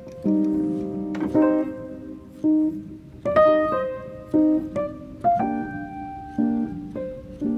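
Background piano music: single notes and chords struck one after another, each ringing and fading.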